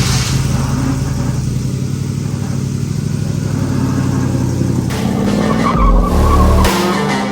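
Car engine running, its pitch rising as it revs up about five seconds in, with deep thumps around six seconds in.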